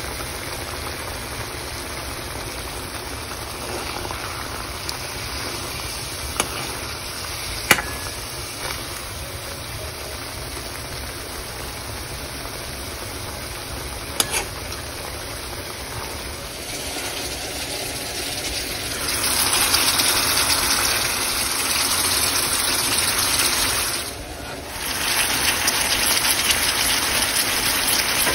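Chicken pieces sizzling and bubbling in masala gravy in a pan on a high flame, stirred with a steel spoon that clicks against the pan a few times. The sizzle grows louder about two-thirds of the way through, with a short dip shortly before the end.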